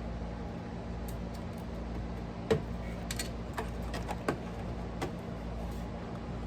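Scattered light clicks and knocks of computer hardware being handled and fitted into a PC case, the sharpest about two and a half seconds in.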